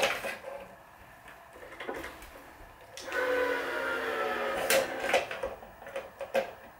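A 17-gauge cross string being pulled through the woven main strings of a racquet, a rasping whirr that falls slowly in pitch for under two seconds around the middle. It is framed by a sharp click at the start, another near the end, and a few light ticks of handling at the stringing machine.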